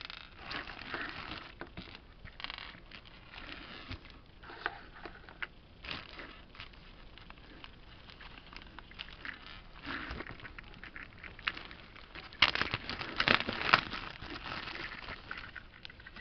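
Clear plastic bag crinkling and rustling as it is handled, in irregular bursts, loudest about twelve to fourteen seconds in.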